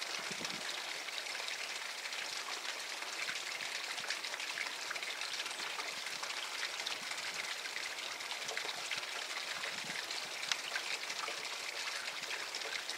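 Steady, fine crackling hiss of a light breeze through the surrounding trees and foliage.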